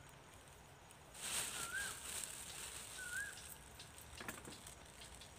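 Rustling and handling noise of fishing gear being packed into the back of an SUV, starting about a second in, with a sharp click near the end. Two short, curling bird chirps sound about a second and a half apart.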